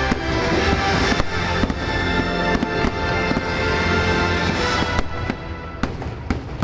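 Aerial fireworks shells bursting in quick, irregular succession over the show's loud soundtrack music.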